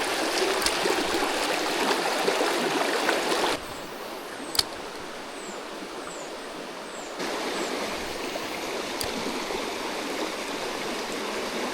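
Mountain stream flowing steadily, its loudness dropping abruptly a few seconds in and rising again about halfway. In the quieter stretch come a sharp click and then four short, high, falling chirps.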